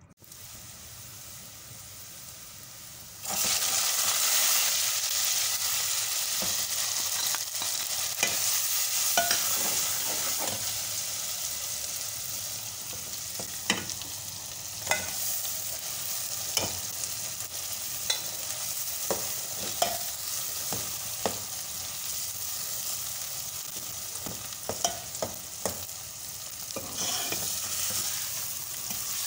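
Oil sizzling in an aluminium pot as onions and masala fry, much louder from about three seconds in. A steel slotted spoon knocks and scrapes against the pot now and then as the food is stirred.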